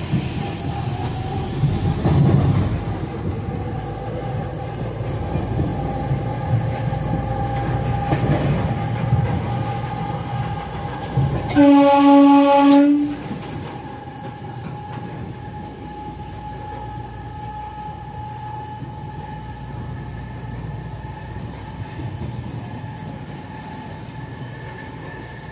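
Electric locomotive running along the track, with a steady rolling rumble and a steady high whine. About twelve seconds in it sounds its horn once, a loud blast of about a second and a half. After the blast the running noise is quieter.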